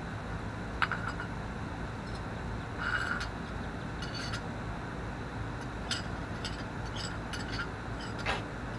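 Light clinks and scrapes of cat food tins and dishes being handled on a concrete porch, a few scattered taps over several seconds, over a steady low hum.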